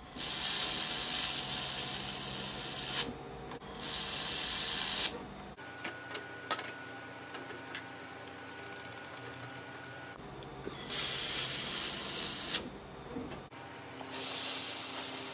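XPhotonics X1 Pro handheld laser welder firing on aluminium intercooler pipe: four bursts of loud hissing, each lasting one to three seconds. A quieter stretch with a few light clicks comes in the middle as the pipe is handled in its clamps.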